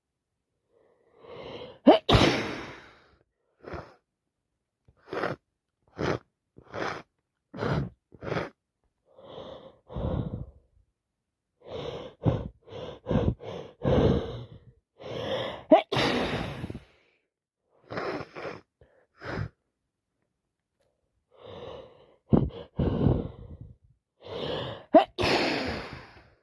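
A woman with a head cold sneezing again and again. Several sharp sneezes come about two seconds in, near the middle and twice near the end. Between them are short sniffs and gasping in-breaths.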